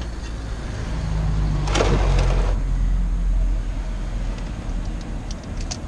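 A three-jaw oil filter wrench on a ratchet turning a rusted spin-on oil filter loose on a Nissan MR20DE engine. There is a grating scrape about two seconds in and a few light clicks near the end, over a steady low hum.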